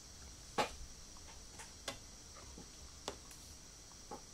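Scattered single clicks and light taps, about eight of them at uneven intervals with the loudest about half a second in, over a faint steady hiss: computer controls being clicked to start playback of an audio file.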